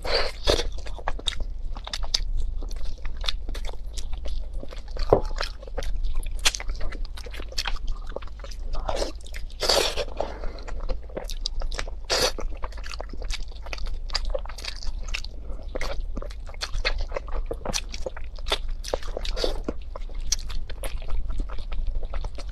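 Close-miked eating of pork tails: wet bites, chewing and quick sharp smacks as the meat and skin are torn and stripped from the tail bones with the teeth.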